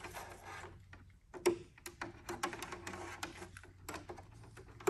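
Hard plastic parts of a roof vent fan clicking and knocking as they are handled and fitted together, a quick string of sharp clicks from about a second and a half in.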